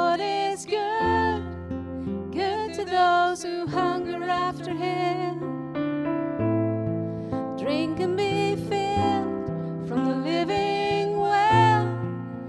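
Live worship band playing a slow song: a woman singing the melody over keyboard, electric guitar and acoustic guitar, with a short break in the singing about halfway through.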